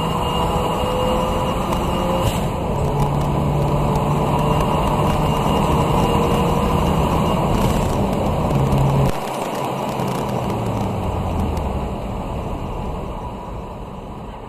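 Interior sound of a 2016 Ford Focus RS's turbocharged 2.3-litre four-cylinder pulling hard at full throttle with wind and road noise. About nine seconds in, the throttle is lifted: the loudness drops suddenly and the engine note falls away as the car slows.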